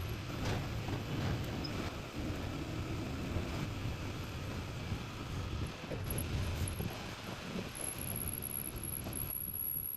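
Metal lathe running, turning a solid metal rod into a dumbbell handle: an uneven mechanical rumble, with a faint high whine coming in near the end.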